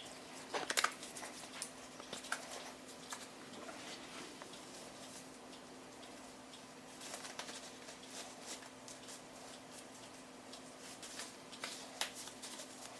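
Faint rustling, rubbing and small snaps of hands being cleaned with sanitizer and disposable gloves being pulled on, scattered through the stretch, over a faint steady hum.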